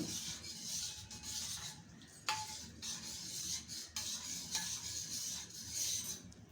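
A spoon stirring strained tea in a vessel to dissolve jaggery: a continuous scraping swish, with a couple of light clinks against the vessel's side.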